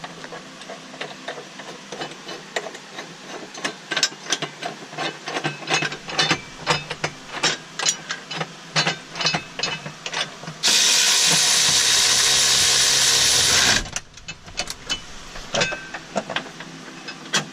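Irregular clicks and clatter of hand tools and fasteners over a faint steady hum. About ten seconds in, a loud steady rushing hiss starts abruptly and cuts off about three seconds later.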